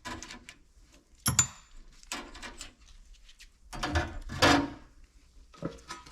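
Small parts being handled on a workbench: a sharp knock about a second in, then short clattering and rattling near the middle.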